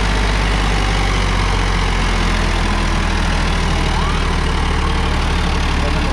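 Sonalika DI-35 tractor's diesel engine running steadily under load as it pulls a disc harrow through dry soil.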